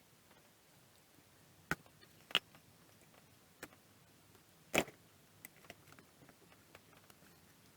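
A few sharp clicks and knocks from parts and tools being handled on a workbench, the loudest about halfway through, over quiet room tone.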